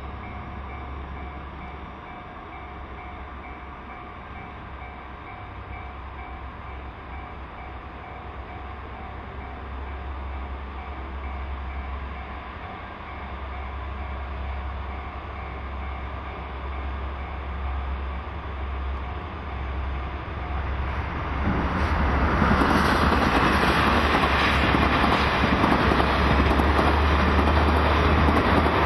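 JR Freight DF200 diesel-electric locomotive hauling a freight train, its diesel rumble growing steadily louder as it approaches. About three-quarters of the way through, a much louder rush of engine and wheel noise sets in as the locomotive passes close by.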